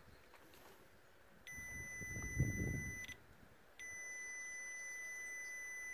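Digital multimeter's continuity buzzer giving a steady high beep as the probes bridge a connected circuit. It sounds for about a second and a half, breaks off briefly, then comes back on and holds, marking near-zero resistance on the O2 sensor heater wire being traced. A short low rumble comes in the middle, just as the first beep ends.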